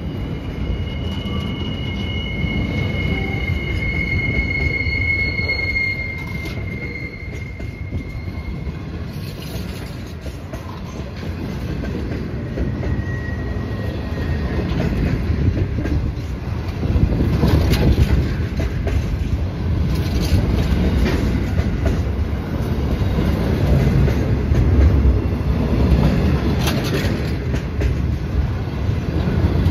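Container freight wagons rolling past at close range, with a steady rumble of wheels on rail. High-pitched wheel squeal rings in the first several seconds. The wheels clatter louder in the second half.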